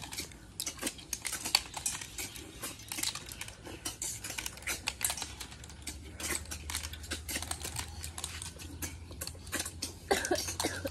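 Small snail shells clicking and rattling against steel plates and each other as several people pick through them and eat them by hand: a rapid, irregular patter of small clicks.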